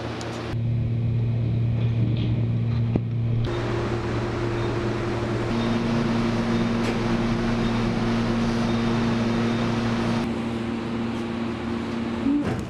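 Elevator car running downward: a steady mechanical hum with a few held low tones that shift a couple of times and drop away about two seconds before the end, followed by a short knock near the end.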